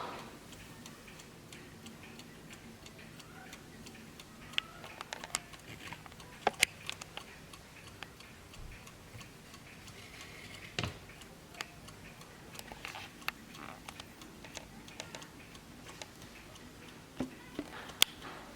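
Vintage Warmink mantel clock ticking, with louder sharp clicks at irregular moments.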